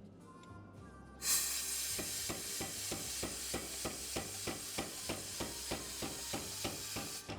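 Power hammer forging a hot W2 steel bar: a loud hiss starts about a second in, then steady hammer blows follow at about three a second, stopping suddenly near the end.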